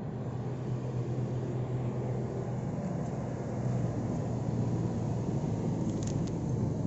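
Mahindra 275 DI XP Plus tractor's three-cylinder diesel engine running steadily, a low even hum that grows slightly louder, with a couple of faint clicks about six seconds in.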